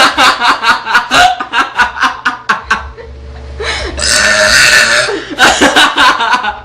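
A girl burping loudly, mixed with bursts of laughter.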